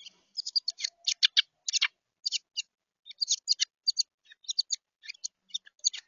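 A juvenile wren calling in rapid, short, high chirps, several a second, bunched in quick clusters.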